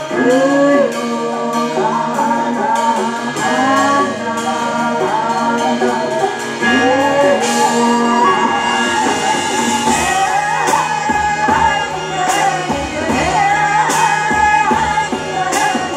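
A song with a singing voice over guitar accompaniment; a steady low beat joins about ten seconds in.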